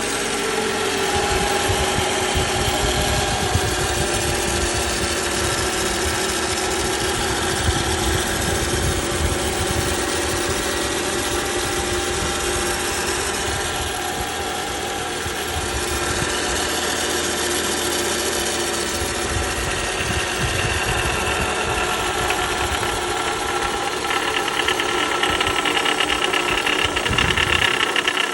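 2010 Toyota Camry engine running, making the strange sound that its owner wants identified: several steady tones over a rapid low pulsing. One tone falls slightly in pitch over the first couple of seconds, and a brighter buzz grows near the end.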